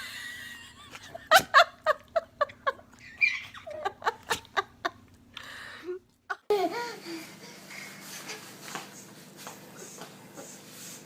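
A baby laughing in a string of short, quick bursts through the first half. Then an abrupt change to a quieter stretch with faint scattered sounds.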